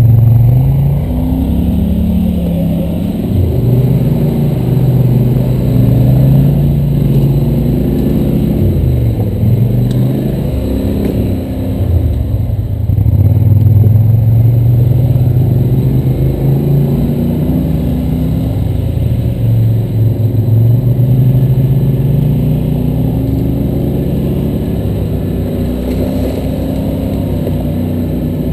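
ATV engine running loud and close under constantly changing throttle, its pitch rising and falling repeatedly as the machine climbs and picks its way along a rough trail.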